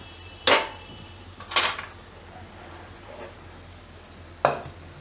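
A metal spatula and a non-stick wok clanking: two sharp knocks about a second apart, then a third clank with a dull thud near the end as the wok is set down on the counter.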